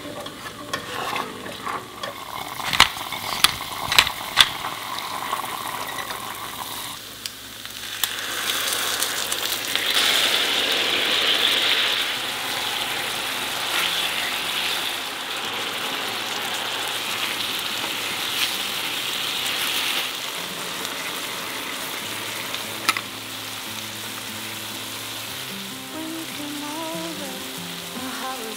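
Tofu frying in oil in a pan, sizzling; the sizzle swells about eight seconds in and then holds steady. A few sharp clicks come in the first few seconds.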